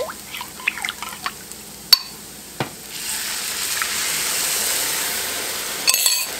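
Chicken broth poured from a glass measuring cup into a hot skillet of sautéed onions, peppers and flour, sizzling with a steady hiss for a few seconds. A few sharp clicks come first, and a short rattle comes near the end.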